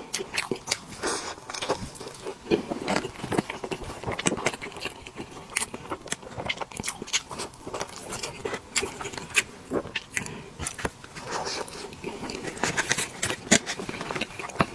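Close-miked eating of soft cake: chewing with wet mouth clicks and smacks, several a second at an irregular pace.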